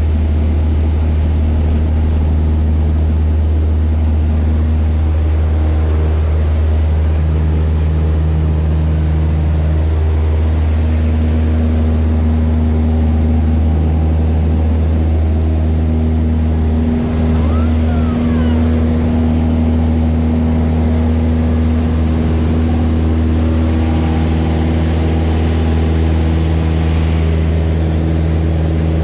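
Single-engine high-wing light airplane's piston engine and propeller running at full power through the takeoff roll and lift-off, heard from inside the cabin as a loud, steady drone.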